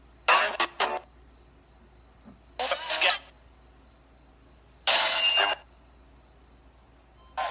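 Spirit box sweeping radio stations, giving short bursts of static and chopped radio fragments four times, roughly every two seconds. Underneath, crickets chirp steadily, about four chirps a second.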